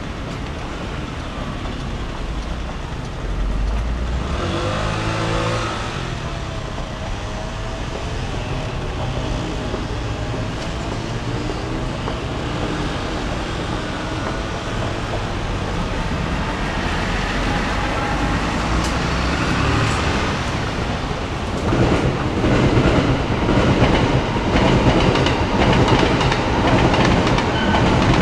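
Trains on the railway running past: a steady rumble that grows louder near the end, with rhythmic wheel clatter over the rail joints.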